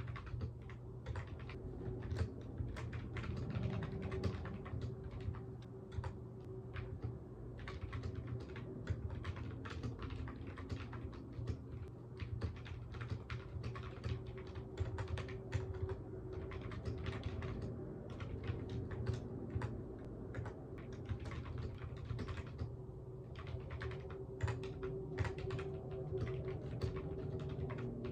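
Typing on a computer keyboard: quick runs of keystroke clicks with a couple of short pauses after the middle, over a low steady hum.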